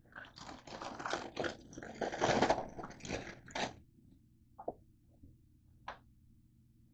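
Rustling and crinkling handling noise for about four seconds, then a few light clicks.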